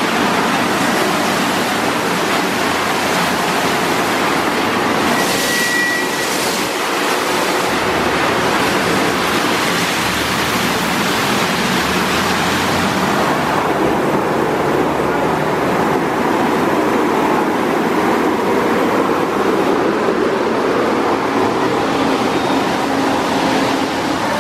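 Ceccato Aquarama Stargate S7 rollover car wash at its brush stage: the spinning nylon side and top brushes scrub a wet car with a steady, loud rushing and swishing. About halfway through the hiss thins and a lower churning sound comes forward.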